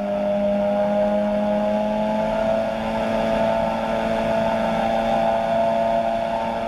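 Engine and pusher propeller of a weight-shift ultralight trike droning steadily in flight, the pitch rising slightly over the first few seconds and then holding.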